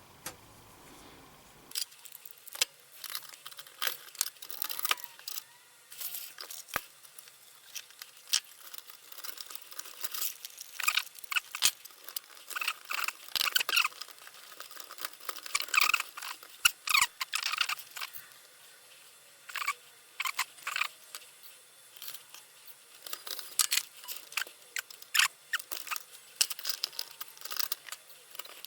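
Irregular clicks, taps and scraping rustles of small parts and tools being handled, starting about two seconds in.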